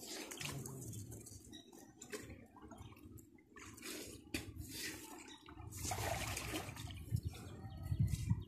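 Pond water splashing and dripping in uneven bursts over a low rumble, with louder splashes about six and eight seconds in.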